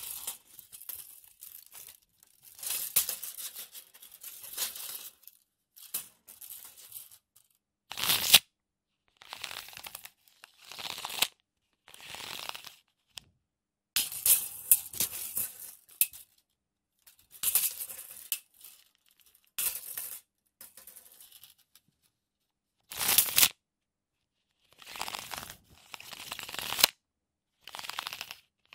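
Metal tape measure, its steel blade repeatedly pulled out and wound back in, making rattling, scraping bursts with pauses between them. A couple of short, loud bursts stand out, about a third of the way in and again about four-fifths of the way through.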